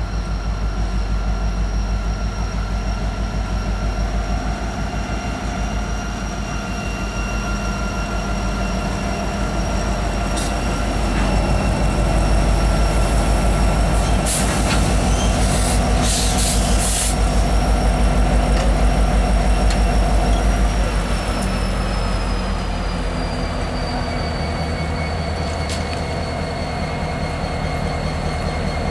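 Norfolk Southern EMD SD70ACe diesel locomotives running at low speed, a heavy engine rumble under a steady high whine. About two-thirds of the way through, the whine falls in pitch and the engines quiet a little as the train eases to a stop. A few short bursts of hiss in the middle.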